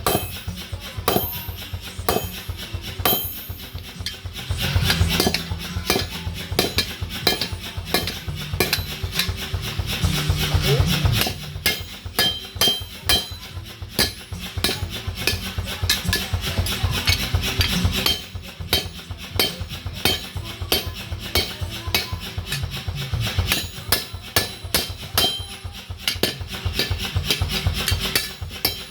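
Blacksmiths' hammers striking metal on an anvil, many quick strikes a second, keeping up a steady rhythm.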